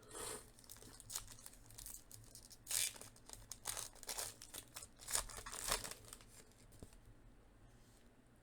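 Crinkling and rustling of trading-card packs and cards being handled, in irregular short bursts, with one brief clear peak near the start and then the busiest stretch from about three to six seconds in.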